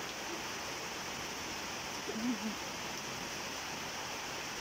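Steady rain falling, an even hiss. A child's voice makes a brief sound about two seconds in.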